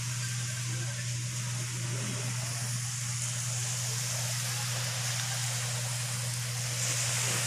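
Beach ambience: a steady low hum under an even hiss of wind and distant surf, with no single event standing out.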